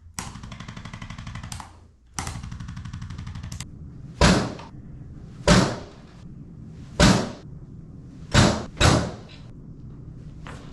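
Chiropractic adjusting sounds: two stretches of rapid, even mechanical buzzing, then five sharp thuds, the first four spaced about a second and a half apart and the last two close together.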